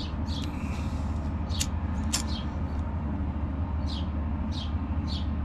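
Steady low rush of a small hand-held butane torch flame heating a heat-shrink solder connector on a spliced wire. Several short, high chirps sound over it.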